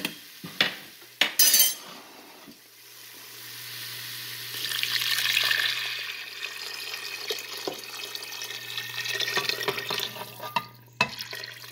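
Beef broth poured from a container into a pot of sautéed chickpeas and vegetables: a steady splashing pour that swells to its loudest about five seconds in and runs on until near the end. A few sharp knocks come at the start.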